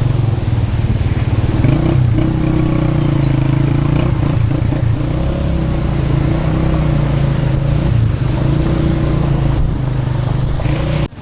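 Motor vehicle engine running steadily, heard from on board while travelling. It drops out briefly near the end.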